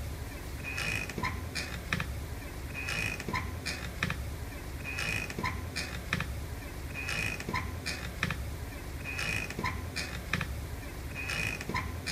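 Hammock creaking as it swings: a short squeak with a few small clicks, repeating evenly about every two seconds, over a low steady hum.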